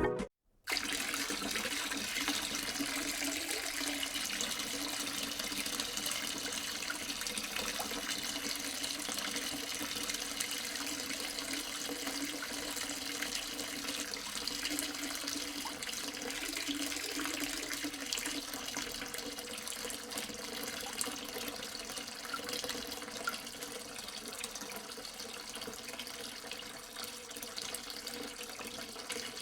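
Water running and splashing steadily, as from a small pump's outlet pouring into a container.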